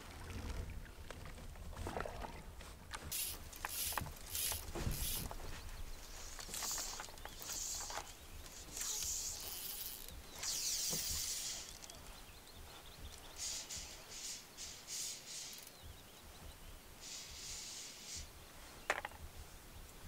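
Canoe paddle strokes in calm water: quiet swishes and drips, one every few seconds at an uneven pace.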